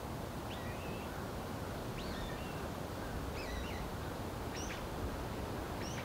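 A bird calling five times, short high chirps about a second and a half apart, over a steady rushing noise.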